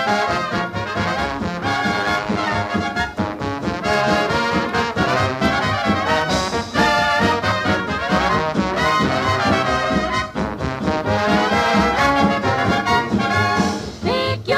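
Instrumental break in an old-time popular song recording: a band with brass playing the tune, with no singing.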